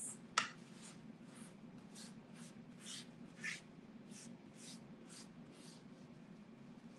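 A paper towel wiped in quick strokes across a wooden cutting board, short swishes about twice a second, after one sharp click near the start. A faint steady low hum runs underneath.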